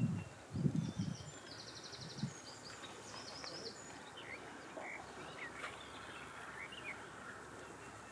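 Small birds chirping and trilling over a steady outdoor background noise, with a few short low rumbles like wind buffeting the microphone in the first second.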